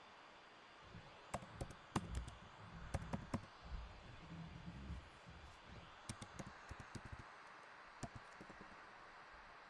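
Keystrokes on a computer keyboard as quiz answers are typed, in two short irregular bursts of clicks, with a low rumble under the first burst.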